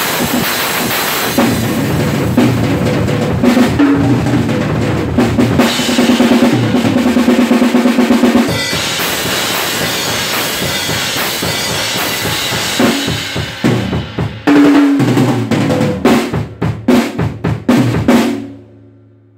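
Acoustic drum kit played solo: dense strokes on snare, toms and bass drum under steady cymbal wash, with a run of rapid, even strokes. The playing drops back, builds to heavy accented hits, then the drums ring out and fade near the end.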